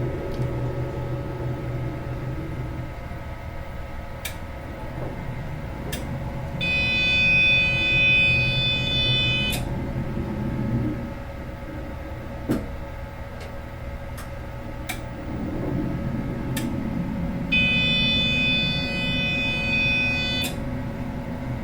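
Medical imaging scanner running: a steady low hum with a few sharp clicks, and twice a loud buzzing tone about three seconds long, the first about a third of the way in and the second near the end.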